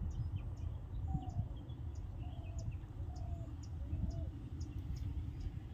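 Birds calling outdoors: a short high chirp repeated about twice a second, with four short lower calls in the middle, over a steady low rumble.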